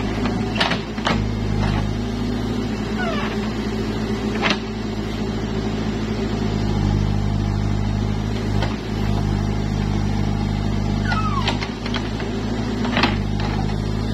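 Case backhoe loader's diesel engine running steadily while the backhoe arm digs. Sharp knocks from the bucket and boom come a few times, and a few short high squeaks.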